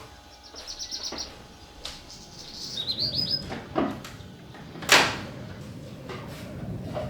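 A small bird chirping in two quick runs of high notes, about half a second in and again around three seconds in. A few household knocks come with it; the loudest is a sharp knock about five seconds in.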